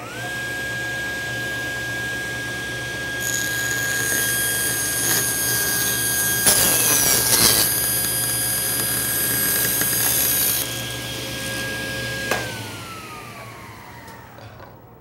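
Table saw switched on and spinning up to a steady whine. From about three seconds in to about eleven seconds in, the blade rips a 1/16-inch strip off a dark hardwood blank pushed through it, and the cutting noise is loudest midway. The saw is switched off about twelve seconds in, and its pitch falls as the blade winds down.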